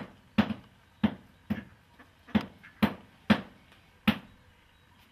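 Hand claps: about eight sharp claps at an uneven pace over four seconds, then they stop.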